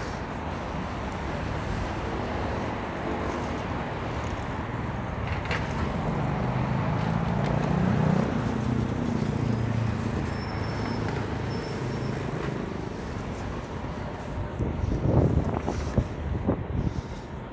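City street traffic noise, with a motor vehicle's engine running as it passes, loudest about eight seconds in. A few sharp knocks come near the end.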